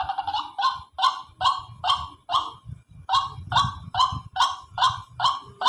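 Recorded white-breasted waterhen (ruak-ruak) calls played from a mobile phone's speaker as a trapping lure call. One call note repeats about twice a second, with a short break about two and a half seconds in.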